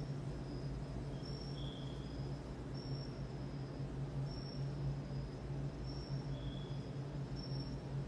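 Steady low hum with faint, short, high-pitched chirps repeating about once a second, and a couple of slightly lower, longer peeps.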